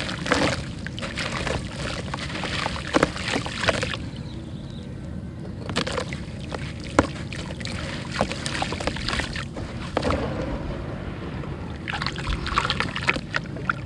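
A wet lump of red dirt being crumbled and squeezed by hand into a basin of muddy water: crumbs and water splash and trickle back in, in three bouts with sharp little clicks and pops. A steady low rumble runs underneath.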